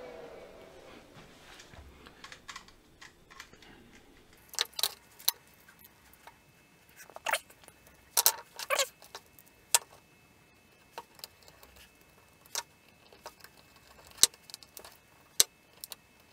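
Scattered light clicks and short rattles from handling a plastic relay base, wires and a screwdriver on a wooden bench, in small clusters with pauses between.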